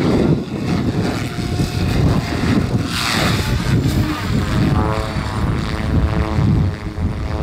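Goblin RC helicopter's rotor blades whooshing as it swoops low past, with a humming rotor tone for a couple of seconds after. Wind rumbles on the microphone throughout.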